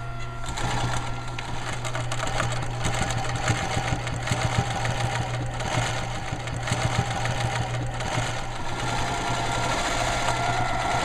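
Electric sewing machine running steadily at speed: a rapid, even mechanical ticking of the needle and its linkage over the hum of the motor, picking up about half a second in.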